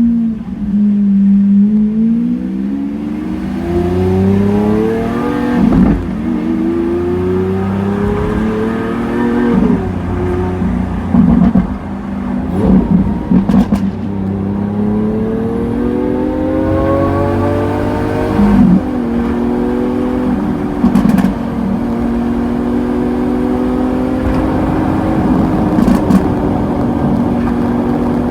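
Lamborghini Aventador S V12 with a Power Craft exhaust accelerating through the gears, its pitch climbing and dropping back at each upshift several times, then holding a steadier pitch near the end. Sharp exhaust crackles and pops come in a cluster about halfway through and once or twice more later.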